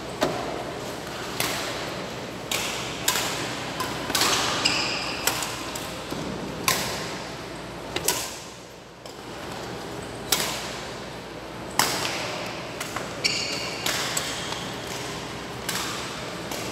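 Badminton rally: sharp racket strikes on the shuttlecock every second or so, with a brief lull around the middle, and short squeaks of court shoes on the floor.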